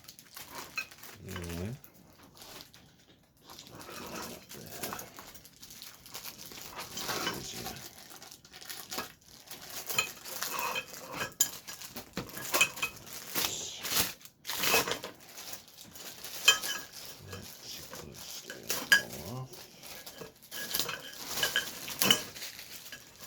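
Sections of a floor-lamp pole clinking and knocking together as they are unwrapped and handled, in irregular clatters throughout.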